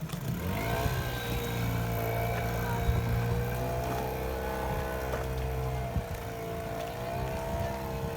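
Boat engine running with a low droning hum and a whine that rises and falls slightly in pitch as the throttle shifts.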